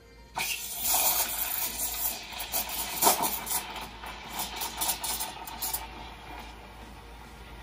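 La Marzocco Linea Mini steam wand opening with a sudden hiss, then steaming milk in a stainless pitcher. The hiss is loud and uneven for about five seconds, typical of milk being stretched, then settles to a quieter, steady hiss near the end.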